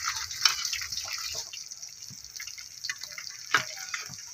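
Hot oil sizzling steadily around rava-coated Indian mackerel (bangda) shallow-frying in a pan, with scattered crackles and a sharper pop about three and a half seconds in.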